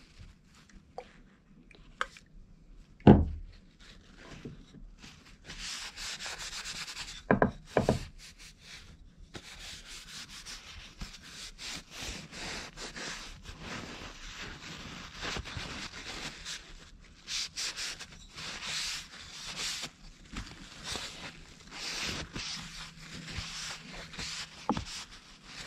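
Paper towel rubbing briskly over a carved wooden spoon in uneven, scratchy strokes, with a few sharp wooden knocks early on as the spoon is handled against the board.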